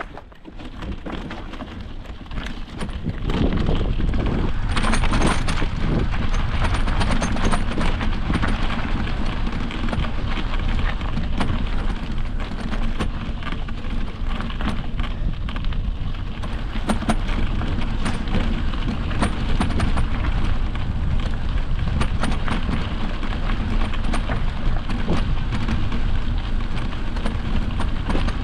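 Riding noise from an e-mountain bike on a dirt trail: wind buffeting the microphone with a deep rumble, and the tyres and frame rattling over rough ground in many small clicks. It grows to a steady loud rush about three seconds in as the bike picks up speed.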